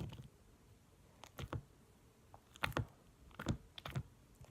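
Sticky homemade glue-and-detergent slime being kneaded by hand, giving about five faint, sharp clicks and pops, mostly in the second half.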